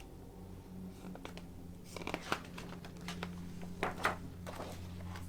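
Paper rustling and crinkling in a few short bursts, the sound of pictures and book pages being handled, over a low steady hum.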